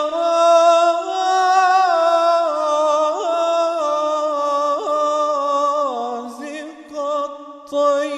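A solo male voice singing an Arabic religious hymn (inshad) unaccompanied, drawing the word 'يا' out into one long ornamented note. The note wavers with small quick turns, steps down in pitch about six seconds in, and breaks off briefly near the end.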